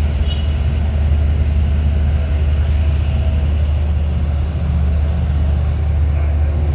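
Diesel engines of a catamaran fireboat running steadily as it manoeuvres off a pier, a deep, steady rumble.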